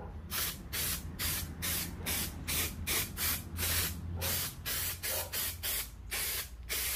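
Spray adhesive being sprayed in quick short hisses, about three a second, to glue lining carpet onto a van's door panel.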